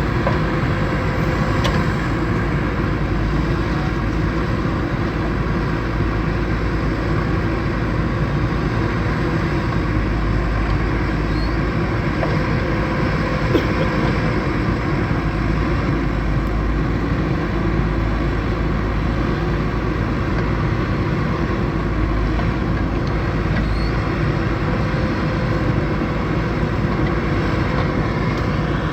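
Backhoe loader's diesel engine running steadily under working load, with a deep rumble and a few faint knocks.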